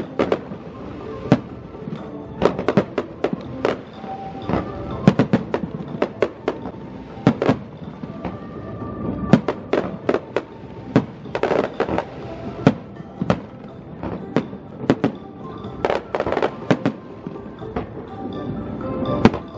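Aerial fireworks shells bursting: many sharp bangs in quick, irregular succession, sometimes several a second, with music playing underneath.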